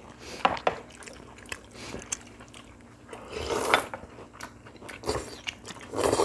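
People eating close to the microphone: chewing, light clicks of metal chopsticks against dishes, and a longer slurp of noodles about three and a half seconds in.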